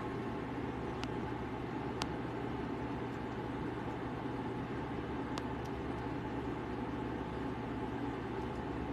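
Steady low hum and rumble of background noise, with a few faint clicks.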